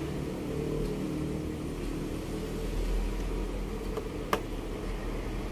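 A steady low hum with a row of evenly spaced overtones, plus a single sharp click about four seconds in.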